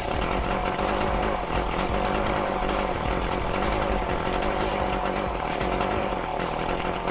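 Qualcast two-stroke petrol strimmer engine running steadily, warmed up on its new carburettor. It keeps running without cutting out.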